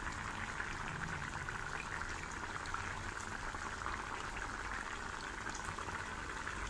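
Thick cauliflower-tomato curry simmering in a kadai, a steady fine crackle of bubbles popping at its surface as it reduces and thickens.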